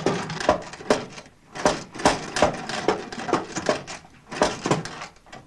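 La Populaire hand sewing machine clacking as its top plunger is pushed down by hand, a steady run of sharp metallic clicks about two or three a second.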